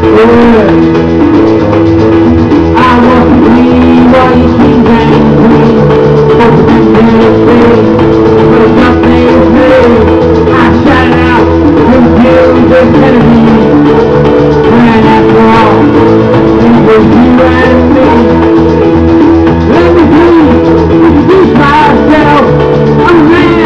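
Loud karaoke music through a sound system: a backing track with guitar and drums, and a voice singing over it.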